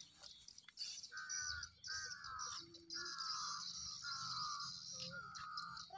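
A bird calling five times, about once a second, each call short and slightly falling in pitch, over a steady high-pitched drone.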